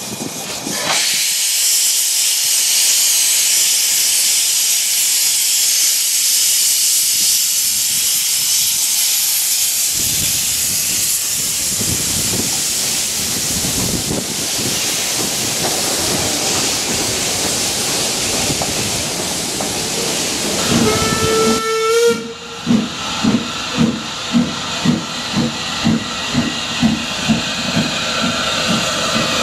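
Small industrial saddle-tank steam locomotive pulling away, with a loud steady hiss of steam from its open cylinder drain cocks; its exhaust beats come in about a third of the way through, and it gives a short whistle blast near the two-thirds mark. Then a second saddle tank works past with sharp, regular exhaust beats, about two a second and quickening.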